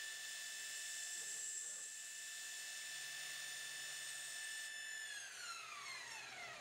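CNC milling machine spindle running with a steady high whine, then spinning down about five seconds in, its pitch falling as the spindle stops.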